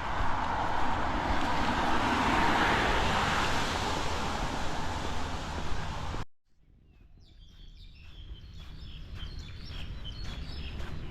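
Steady, loud outdoor rushing noise that swells slightly and then cuts off abruptly about six seconds in. After the cut, birds chirping and walking footsteps fade in.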